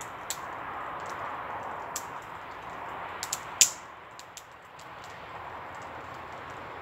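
Wood fire crackling: scattered sharp pops and ticks over a steady hiss, with a cluster of louder snaps about three and a half seconds in.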